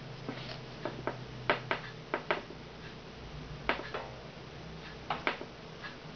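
A dozen or so short, sharp clicks and taps at irregular intervals, several in quick pairs, over a faint steady low hum.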